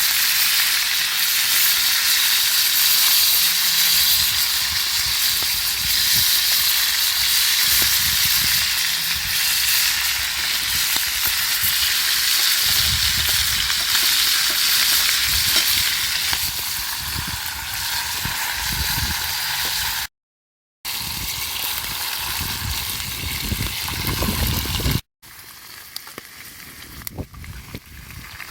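Food sizzling in a hot pan over a campfire, a steady loud hiss. It drops out briefly about 20 seconds in, and near the end gives way to a much quieter stretch of scattered pops and crackles.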